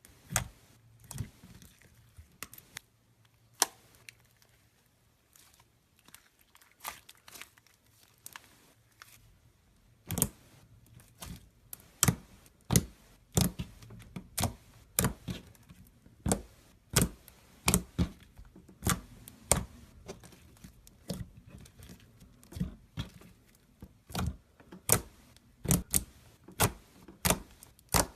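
Hands pressing and squeezing slime, making a series of sharp clicking pops: sparse at first, then about one to two a second from about ten seconds in.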